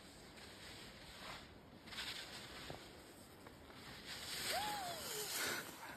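Skis sliding and scraping over snow, a hiss that swells twice as the skis carve. About two-thirds of the way through comes a short high tone that falls in pitch.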